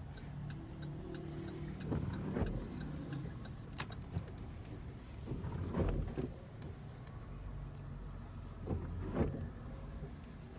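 Car interior while driving: a low, steady engine and road rumble with a faint regular ticking and a few brief swells in the noise.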